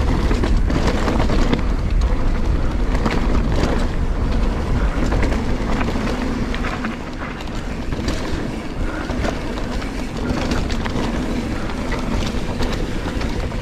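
Giant Trance mountain bike ridden down a dirt forest singletrack: continuous tyre and riding noise with a low rumble and a steady hum, broken by frequent small rattles and knocks from the bike over the rough trail.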